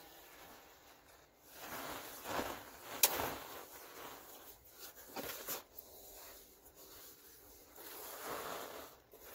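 Powder poured from a plastic tub into a plastic bin, falling in soft rushing swells, with one sharp tap about three seconds in.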